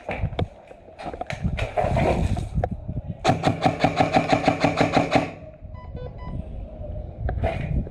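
Airsoft electric gun firing a full-auto burst of about ten shots a second for roughly two seconds, starting about three seconds in. Before it there is rustling with scattered knocks, and faint short beeps come just after the burst.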